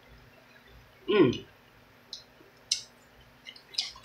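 Soft mouth clicks and lip smacks from eating, with one short hummed "mm" falling in pitch about a second in.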